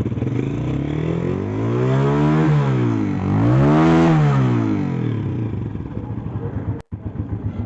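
Honda CG125 single-cylinder four-stroke motorcycle engine, freshly rebuilt, revved up and back down twice and then idling steadily. The owner judges it to sound much better after the rebuild, with the noise it came in for gone.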